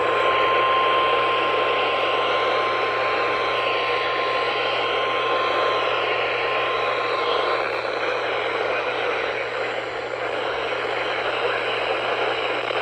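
NOAA Weather Radio warning alarm tone, one steady tone held for about eight seconds and then cut off, over hissing radio static that runs on after it.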